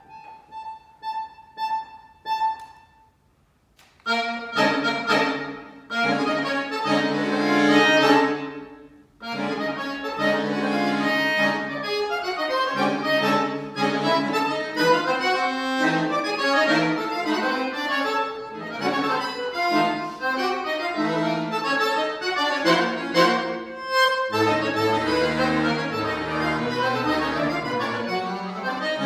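Solo accordion playing a contemporary classical piece: a few short repeated high notes, a brief pause, then loud sustained chords from about four seconds in that break into busy, fast passages, with low bass notes coming in near the end.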